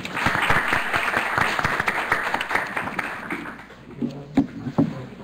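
Audience applauding, fading away after about three seconds, followed by a couple of dull thumps near the end.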